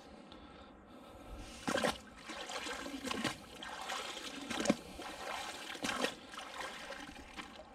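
Canal water dripping and splashing as a wet magnet-fishing rope is hauled in hand over hand, with a heavy find on the end; short splashes come about every second and a half over a steady trickle.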